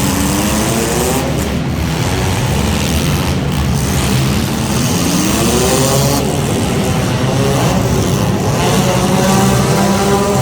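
Front-wheel-drive race cars on track, engines revving up and accelerating, the pitch climbing over a couple of seconds several times over.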